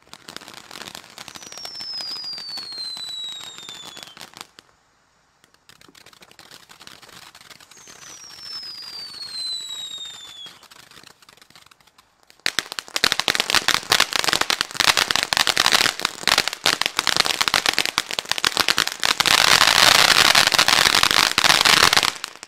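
Ground firework fountain hissing as it throws sparks, with a whistle falling in pitch twice in its first ten seconds. From about twelve seconds in it breaks into a dense, loud crackle that stops just before the end.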